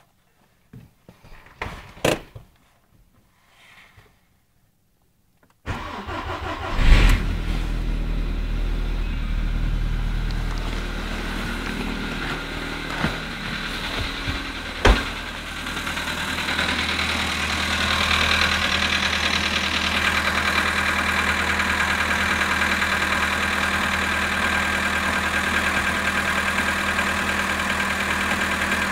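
A few light clicks, then a Volkswagen Polo sedan's engine is cranked and catches on a cold start at about −19 °C, flaring briefly and settling into a steady fast idle. This is the engine knock the title refers to on a frozen start.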